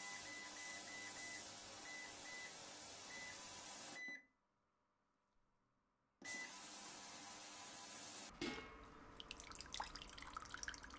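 VEVOR digital ultrasonic cleaner running with a steady high hiss while its control panel gives a string of short beeps as the temperature and timer buttons are pressed. The sound drops to near silence for about two seconds, the hiss returns, and near the end it gives way to water pouring and splashing into the stainless steel tank.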